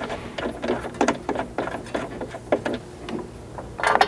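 Small irregular metal clicks and scrapes as M6 button-head bolts are turned in by hand through the tailgate table frame into its spacers, with a louder rattle near the end.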